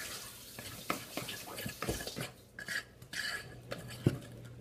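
A utensil stirring thick brownie batter in a mixing bowl, with repeated scraping swishes and occasional knocks and clinks against the bowl's sides.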